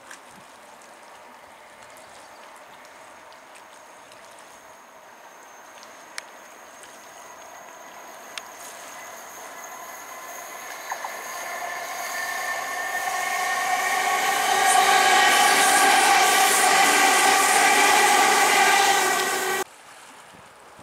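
A c2c Electrostar electric multiple unit approaching and passing, growing louder over about ten seconds, its running sound carrying a whine of several steady tones over a hiss. The sound cuts off suddenly near the end.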